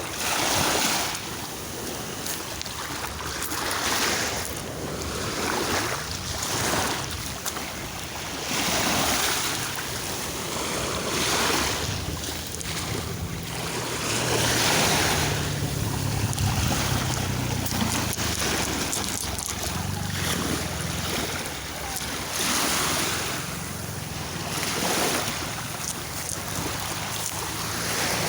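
Sea waves washing in and breaking, the surge swelling and falling every few seconds, with wind rumbling on the microphone.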